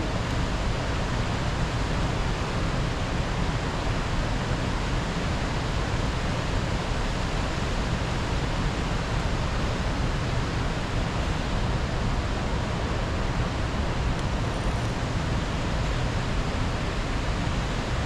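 Steady rushing of river current flowing past rocks, an unbroken even noise.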